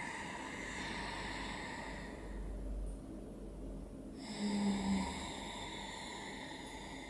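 Ujjayi breathing: two slow, long breaths drawn through the nose, with a soft ocean-like rasp from the air passing the back of the throat and a pause between them. A short low hum comes about four and a half seconds in.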